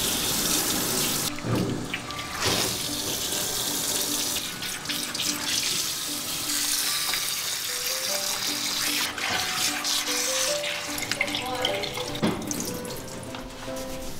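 Water from a handheld shower head spraying and splashing over a cat's soapy fur as it is rinsed, a steady hiss with brief breaks.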